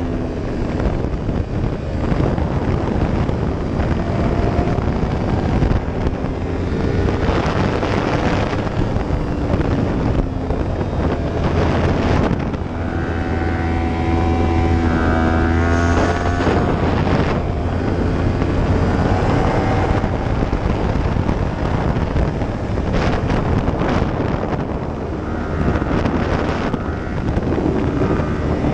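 2015 Yamaha YZF-R1's crossplane inline-four engine running under way, its pitch rising and falling with the throttle, with heavy wind rush on the microphone.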